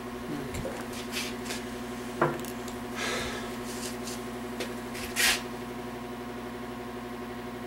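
Tools and small engine parts handled by hand at a workbench: a few clicks and short rustles, the sharpest click about two seconds in and a brief rustle about five seconds in, over a steady electrical hum in the shop.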